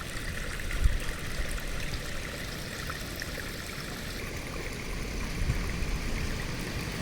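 Small stream flowing steadily over stones, a continuous trickling and gurgling of water with a low rumble beneath.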